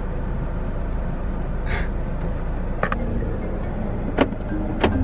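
Road noise inside a moving car: a steady low rumble, with a brief hiss about two seconds in and a few sharp clicks later on.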